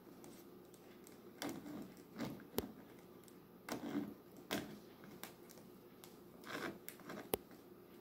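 A cat wrestling a small plush toy on a hard floor: faint irregular scuffles and rustles of paws, claws and fur on the floor and the toy, with a few sharp clicks.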